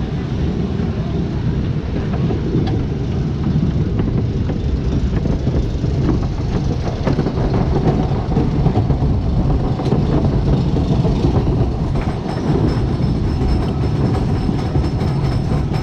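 Wooden roller coaster train rolling along the track, heard from aboard: a steady low rumble with scattered clicks and clacks. Thin high tones join in for the last few seconds.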